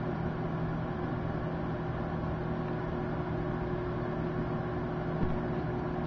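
Microwave oven running, a steady hum.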